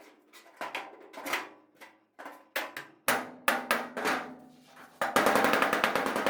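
Hammer blows on the sheet-steel hood of a 1969 GMC C20 as dents are beaten out: separate ringing strikes, then a fast run of about a dozen taps a second from about five seconds in.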